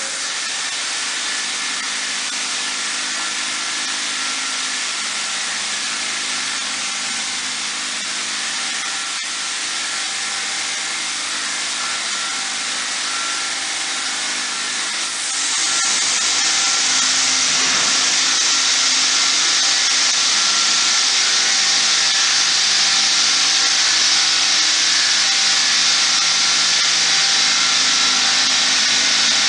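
MistMAXX 360 Hurricane XL sprayer running steadily, a motor hum over rushing air. About halfway through it gets louder, with a stronger high hiss.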